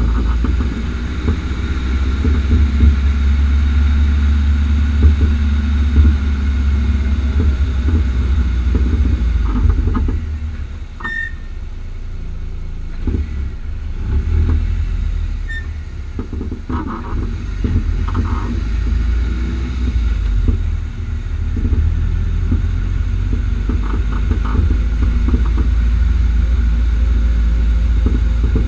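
Car driving over uneven road: steady low road rumble with many short knocks and pops. These fit the popping from the front-right coilover (Bilstein PSS9 damper with H&R spring) as it works over the road, whose cause the owner has not found.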